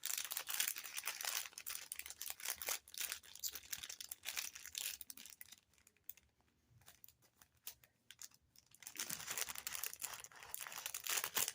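Packaging crinkling and rustling as items are handled and unwrapped, in quick irregular bursts; it goes almost quiet for a few seconds in the middle, then the rustling starts up again.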